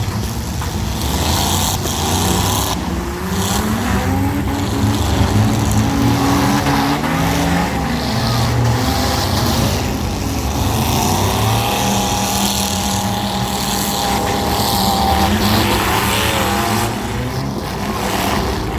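Several small cars' engines revving up and down together in a demolition derby, with occasional sharp bangs of car bodies colliding.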